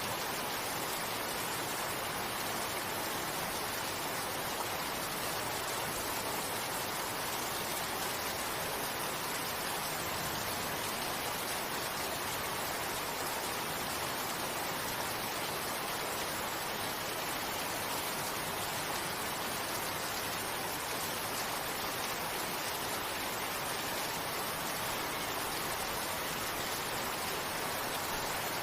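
Steady rain, an even, unbroken hiss of falling drops.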